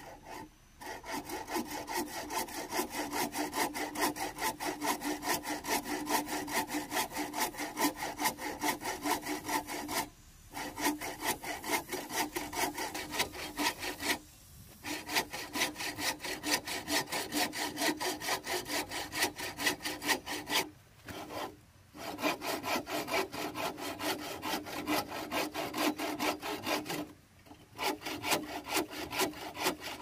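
Hand bow saw cutting through a green bamboo pole in fast, even back-and-forth strokes, stopping briefly four times before sawing on.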